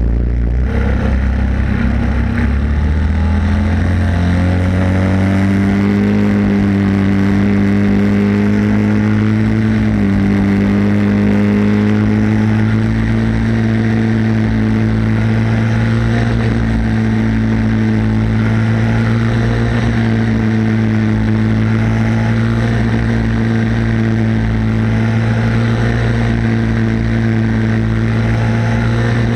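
Single-cylinder Briggs & Stratton flathead engine of a racing kart at full throttle, close to the engine: the pitch climbs steadily through the first six seconds or so, dips briefly about ten seconds in, then holds at high revs with only small rises and falls.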